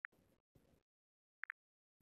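Near silence with a few faint short high blips, one at the start and a quick double about one and a half seconds in, over faint soft rustling.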